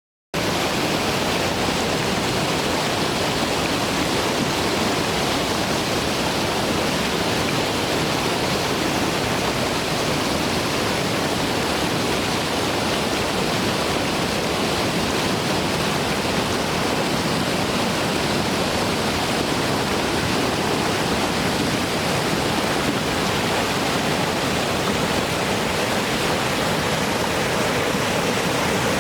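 Waterfall rushing: a steady, unbroken sound of falling water that cuts in suddenly just after the start.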